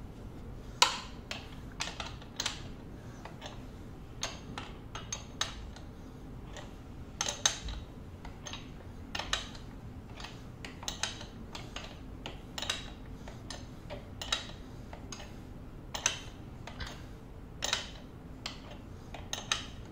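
Steel open-end wrench clicking against the pedal and crank as it is repeatedly fitted and turned, tightening a left bicycle pedal anticlockwise into the crank arm. The clicks are sharp, metallic and irregular, about one a second.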